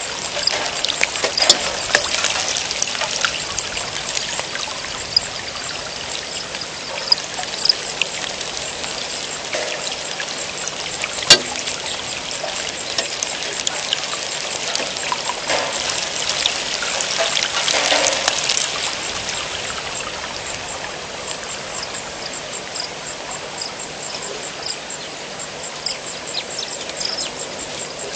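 Rain falling steadily, with water pouring and trickling and sharp drops striking close by, the loudest crack about eleven seconds in.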